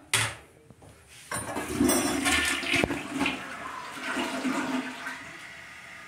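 Tank toilet: a sharp clack as the lid is lifted against the tank, then the flush, a loud rush and gurgle of water that eases off about five seconds in into the steady hiss of the tank refilling.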